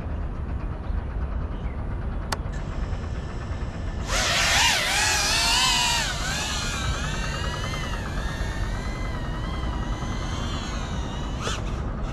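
FPV racing quadcopter's brushless motors whining as it flies. The pitch rises and falls with the throttle, loud about four seconds in as it passes close, then fainter and wavering on.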